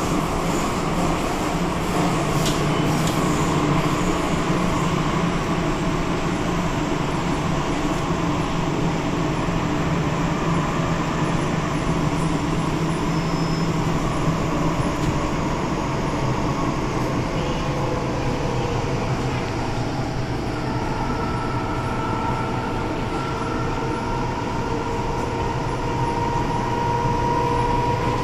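Inside a car of an MTR Kwun Tong Line M-train electric multiple unit running through the line: a steady rumble of wheels and running gear. In the second half the hum of the traction motors comes in and slowly shifts in pitch as the train changes speed.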